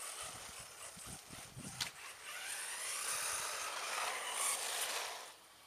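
RC buggy driving fast over paving stones: its motor whining and revving with the throttle over the rasp of its tyres on the pavers, with one sharp knock about two seconds in. The noise dies away near the end.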